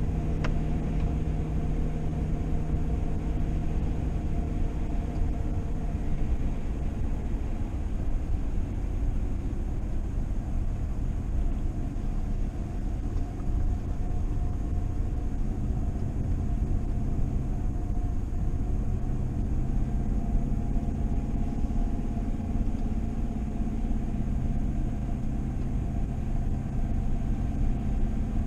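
A vehicle's engine and road rumble heard from inside while driving, steady throughout, with the engine note shifting in pitch partway through.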